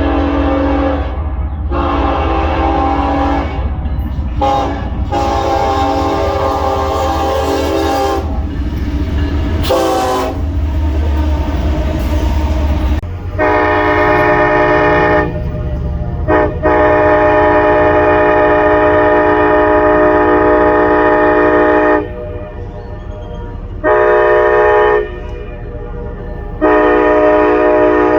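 Diesel locomotive air horn sounding a series of blasts, a chord of several steady tones. The last four blasts go long, long, short, long, the standard signal for a grade crossing. A low rumble runs under the first few blasts.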